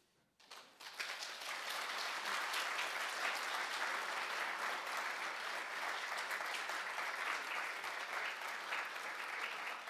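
Audience applauding: many hands clapping, building up within the first second and then holding steady.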